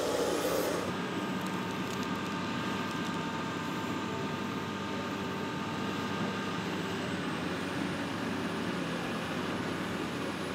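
Diesel engines of Caterpillar tracked excavators running steadily while they dig, with a short hiss of an aerosol marking-paint can less than a second in. A faint steady whine sits over the engine noise through the first half.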